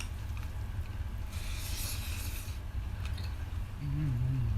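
Sounds of people eating a meal: a brief hissing noise about a second and a half in and a short, low hummed sound near the end, over a steady low hum.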